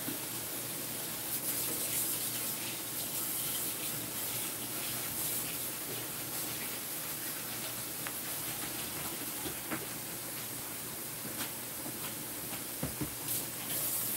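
Kitchen tap running steadily into a sink, with a few light clinks near the end, the clearest about a second before the end.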